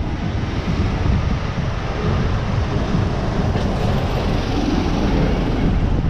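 Steady street traffic noise: a city bus's engine and tyres coming up the road, over the general rumble of passing vehicles.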